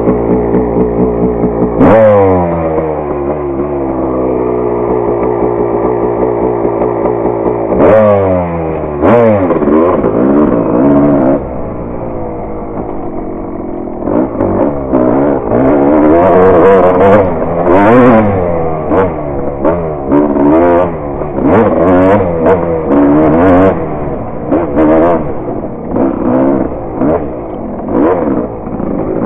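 Dirt bike engine running: two sharp throttle blips, each sinking slowly back, then from about halfway the throttle opens and closes again and again as the bike rides along the trail.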